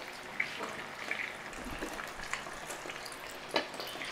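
Hot oil sizzling and crackling steadily around a whole pompano shallow-frying in a wok, the fish already crisp on both sides. A few sharp clicks stand out, the loudest near the end.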